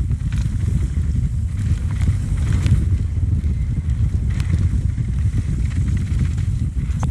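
Wind buffeting the microphone and tyres rolling fast over dirt singletrack on a mountain bike, a steady rumble with a few brief rattles of the bike over bumps.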